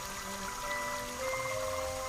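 Gentle waltz music with bell-like mallet notes, over a soft trickle of water.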